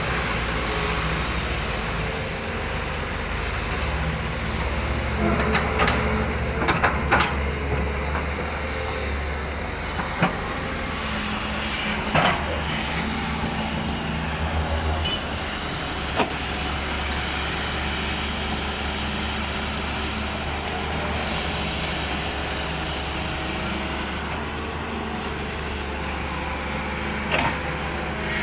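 SANY SY220C-9 hydraulic excavator's diesel engine running steadily as it works, with several sharp knocks or clanks scattered through, typical of the bucket and steelwork striking.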